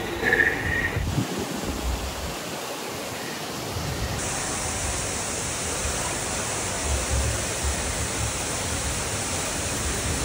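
Steady rushing noise with no distinct tones; about four seconds in it suddenly turns brighter and more hissing.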